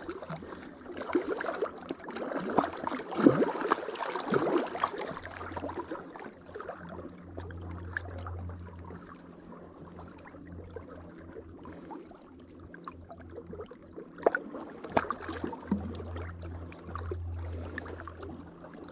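Water splashing and sloshing around a landing net holding a live walleye in the shallows, busiest in the first few seconds, with a few knocks later on.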